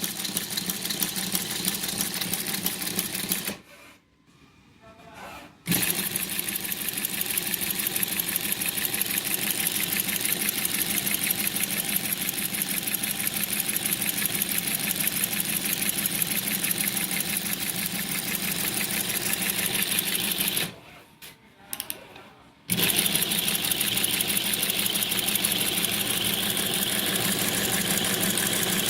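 G-TEK single-needle high-speed industrial sewing machine with a pleating attachment, stitching at speed with a rapid, even rattle. It stops twice for about two seconds and starts again.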